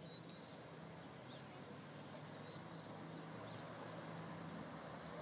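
Faint outdoor field ambience: a steady high-pitched insect trill with scattered faint bird chirps over a low hum.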